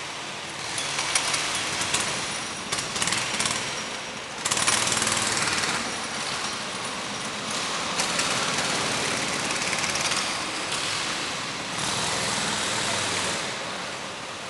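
Several small go-kart engines running, rising and falling in loudness, with a sudden louder surge about four and a half seconds in.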